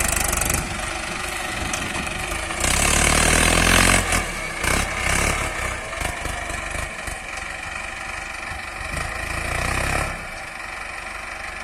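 Mahindra Arjun 555 DI tractor's diesel engine running while pulling a mouldboard plough. It surges louder for a second or so about three seconds in, then settles to a steady run and eases off near the end.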